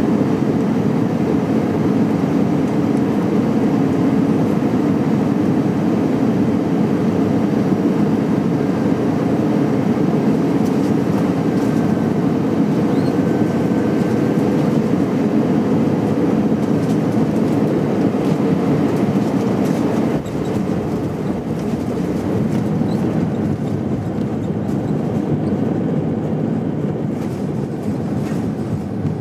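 Cabin noise of an Airbus A319 with CFM56 engines on final approach and landing, heard beside the wing: a steady, loud rush of engine and airflow noise. About twenty seconds in, the noise steps down a little.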